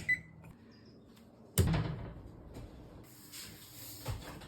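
Kitchen prep sounds while brownie ingredients are combined: a short clink, then a loud thud about a second and a half in, followed by a brief hiss and a softer knock near the end.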